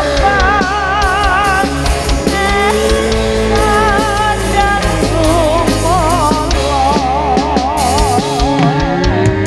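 Live jaranan (kuda lumping) accompaniment music: drums keep a steady beat under a high melody with a wavering vibrato and pitch slides, over a continuous bass.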